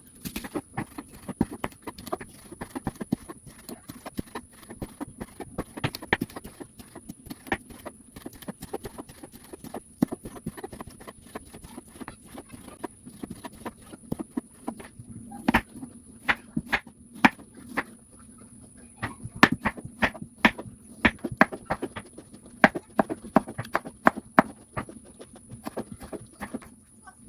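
A long run of sharp, uneven knocks from kitchen utensils on a hard surface, coming thicker and louder in the second half.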